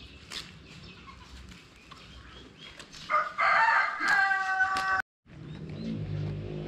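A rooster crowing: one long call about three seconds in, cut off abruptly near five seconds.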